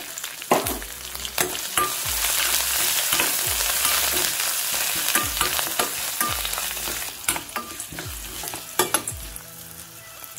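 Tempering of curry leaves, green chillies, ginger, cashews, pepper and cumin sizzling in hot ghee and oil in a steel pan while it is stirred, the utensil clicking against the metal every second or so. The sizzle eases off near the end.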